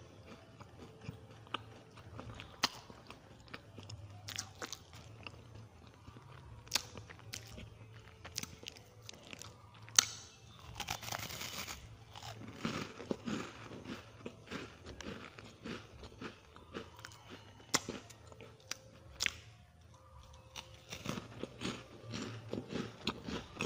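Crisp wafer bars being bitten and chewed close to the microphone: sharp, separate crunches scattered throughout, with runs of quick crackly chewing in between and a short rustle about halfway through.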